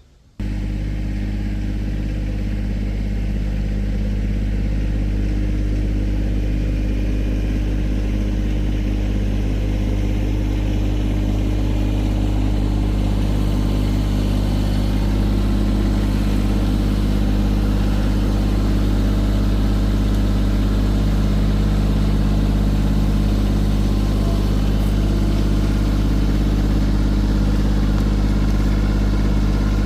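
An engine running steadily at a constant speed, cutting in suddenly just after the start.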